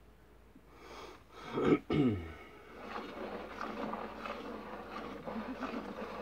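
Milk squirting from a goat's teats into a part-full bucket as she is hand-milked: a quick, uneven rhythm of frothy hissing streams. About two seconds in there is a short, loud grunt that falls in pitch.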